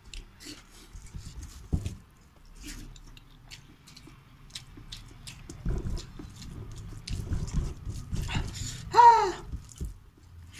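Close-up eating sounds of someone eating with his fingers: chewing, wet lip smacks and small mouth clicks. About nine seconds in comes a short, loud, high-pitched cry whose pitch rises and falls.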